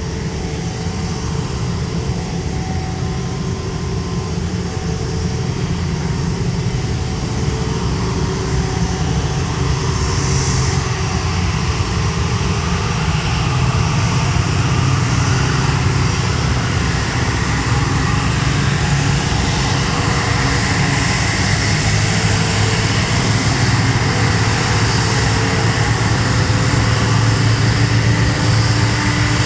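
Lion Air Airbus A330-900neo's Rolls-Royce Trent 7000 turbofan engines running loud and steady, with a deep rumble under a jet roar, slowly growing louder.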